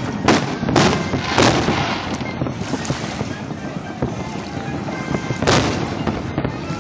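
Aerial fireworks shells bursting: three booms in quick succession in the first second and a half, then another about five and a half seconds in, each trailing off in an echo.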